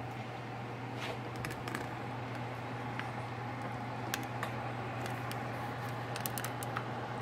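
A steady low hum with a fainter steady higher tone above it, and scattered light clicks and taps.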